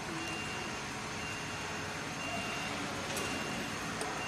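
Industrial sewing machine running: a steady mechanical hum with a thin high whine that starts and stops several times, and a couple of sharp clicks near the end.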